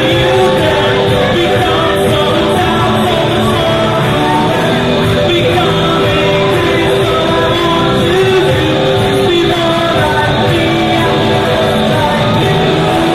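A live fusion band playing: voices singing into microphones over keyboard and drums, with long held notes.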